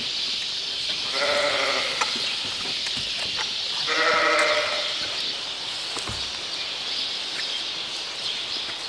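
Lambs bleating twice, first about a second in and again about four seconds in, each bleat under a second long.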